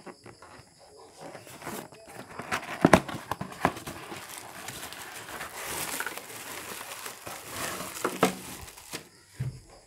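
Cardboard packaging being handled, with a few sharp knocks, the loudest about three seconds in, then the clear plastic wrap around a ring light crinkling.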